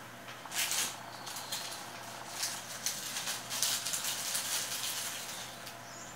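Small clear plastic bag crinkling and rustling as it is handled, in an irregular run of crackles that fades out near the end.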